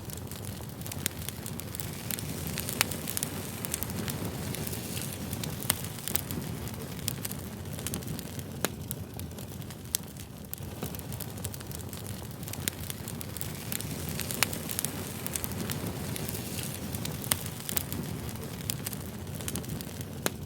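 Wood fire burning, a steady low rumble of flames with scattered sharp crackles and pops of burning wood.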